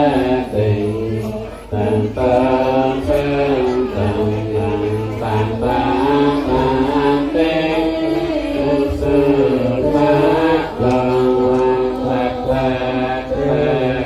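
Javanese gamelan accompaniment with a chanted vocal line: sung notes that waver and slide without pause, over regular percussive strikes.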